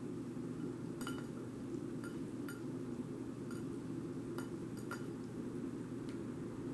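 A tabby cat eating off a ceramic plate, its teeth and tongue knocking the plate in about seven small ringing clinks, over a steady low hum.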